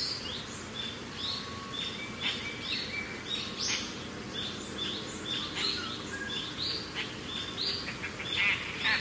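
Small birds chirping over and over, a few short high chirps each second, over faint low background noise.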